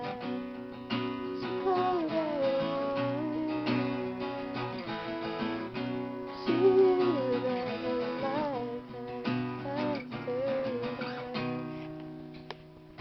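Acoustic guitar strummed in chords, with a voice singing a melody over it.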